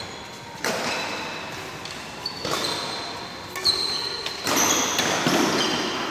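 Badminton rally in a large echoing hall: about four sharp racket hits on the shuttlecock, each ringing on in the hall, with short high squeaks of shoes on the court floor.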